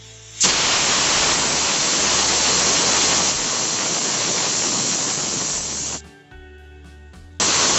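United aluminium pressure cooker whistling: a loud, even hiss of steam venting past the lifted whistle weight, the sign that full pressure has been reached. It starts abruptly about half a second in and lasts about five and a half seconds, then cuts off. A second whistle starts abruptly near the end.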